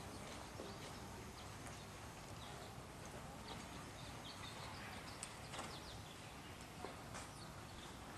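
Faint hoofbeats of a Dutch Warmblood mare trotting on soft arena footing, under a steady background hiss.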